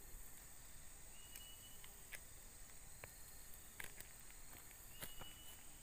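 Steady high-pitched drone of insects, with a few light clicks as the fishing lure and tackle are handled, and two short thin whistles.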